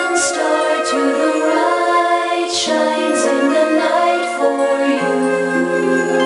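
Show music with held, changing notes and singing voices, at a steady loud level.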